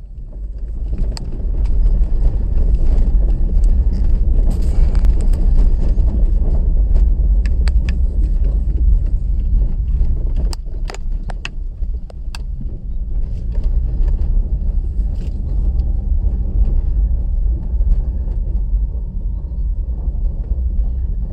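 Inside a small sedan driving on an unpaved dirt road: a steady low rumble of tyres and road noise, with scattered sharp clicks and rattles, most of them about ten to twelve seconds in.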